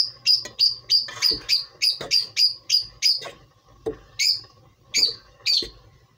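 A small bird chirping: a quick run of high, short chirps at about four a second, then a brief pause and a few slower single chirps.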